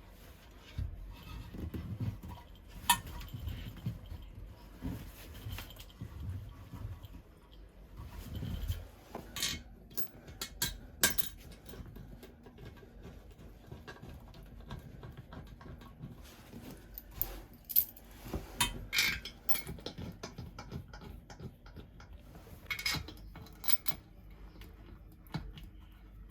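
Hand tools and fittings clinking and knocking at irregular intervals during plumbing work, with clusters of sharp clicks about a third of the way in and again about two-thirds through.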